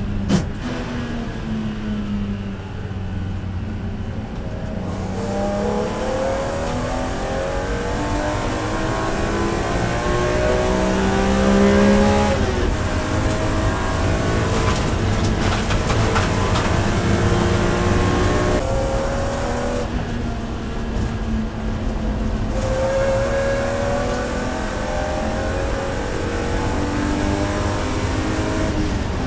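In-cabin sound of a BMW E46 M3's S54 3.2-litre straight-six racing engine at high revs under full throttle. Its pitch climbs steadily for several seconds at a time and falls back a few times before climbing again.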